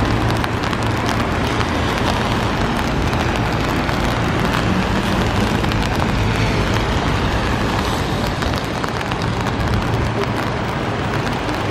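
Boat engines running on the river with water rushing in their wake: a steady low hum under an even rushing hiss.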